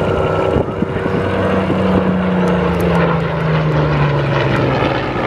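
Hawker Hurricane's Rolls-Royce Merlin V12 engine and propeller running as the fighter flies past, the engine note sliding gradually lower from about a second and a half in.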